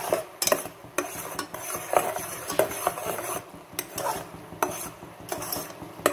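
A metal spoon stirring black sesame seeds through thick, hot jaggery syrup in a pan. Irregular scrapes and knocks against the pan come several times a second, over a faint sizzle.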